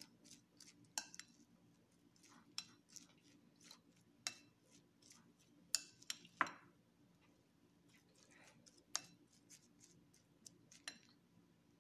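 A spoon stirring chopped carrots and green onions in a glass bowl, clicking and scraping against the glass in quiet, irregular taps, a few sharper clinks about halfway through.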